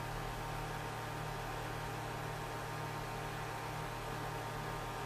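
Steady low hum with a faint hiss: background room tone, with no distinct sounds.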